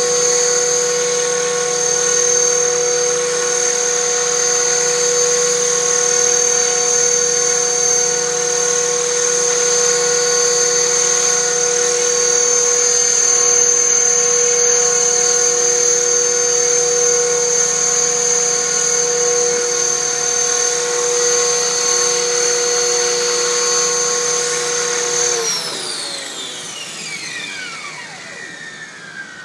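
500-size radio-controlled helicopter with a scale Huey body, its motor and rotors running in a steady whine while it hovers. Near the end the motor spools down after landing, the pitch falling steadily and the sound fading.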